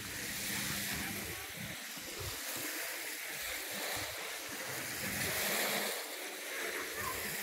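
Wind gusting across the microphone over a steady wash of small waves on a lakeshore beach.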